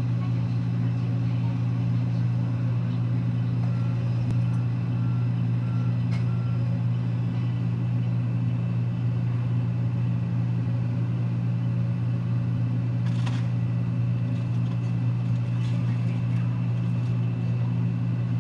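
Demolition excavator's diesel engine running steadily with a deep, unchanging drone. Four short high beeps sound about four to six seconds in, and a single sharp knock about thirteen seconds in.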